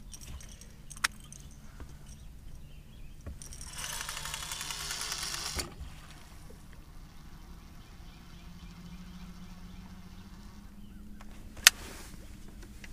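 Fishing rod and reel being handled: a light click, a short rasping burst of reel or line noise about four seconds in, and a sharp loud click near the end, over a steady low hum.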